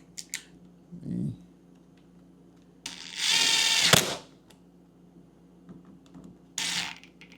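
Power drill running in a whirring burst of about a second, working a screw on a refrigerator door's hinge bracket, with a shorter second burst near the end and a few small clicks of handling.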